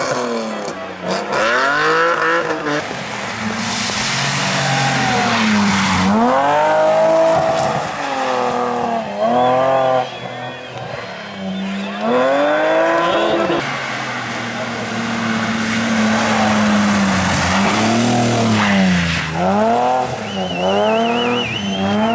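BMW rally car engines, two cars one after the other, being driven hard through a hairpin. The engine note climbs and drops again and again as the cars accelerate, lift off and change gear.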